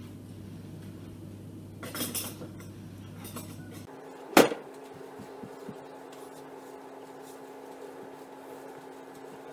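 Small metal kitchen utensil clinking: a few light clinks about two seconds in and one sharp, loud click a little after four seconds, over a low hum that cuts off just before it.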